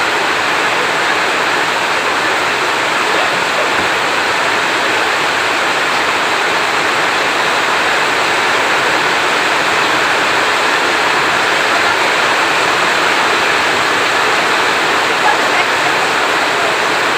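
Heavy rain falling steadily: a dense, even hiss with no thunder in this stretch.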